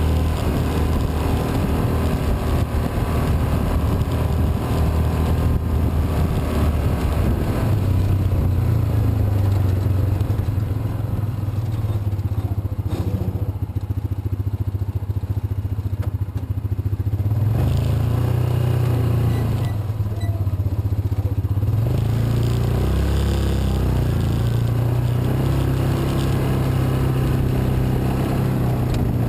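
Yamaha Rhino side-by-side's engine running while driving a trail, its pitch rising and falling with the throttle. About halfway through it eases off for several seconds, then picks up again.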